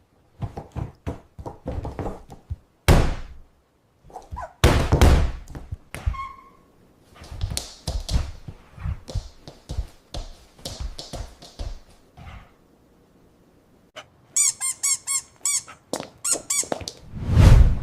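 Scuffling thumps and knocks, then a quick run of high squeaks from a squeezed rubber chicken toy, several a second, near the end. A loud low thud comes just before the end.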